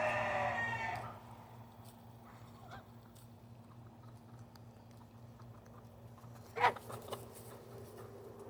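Domestic goose calling: a drawn-out call that ends about a second in, then a single short, loud honk at about six and a half seconds. A low steady hum runs underneath.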